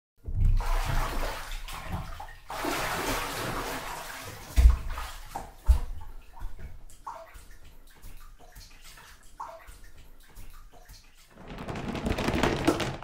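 Water sloshing and splashing in a bathtub, with two sharp splashes about five seconds in and the water noise swelling again near the end.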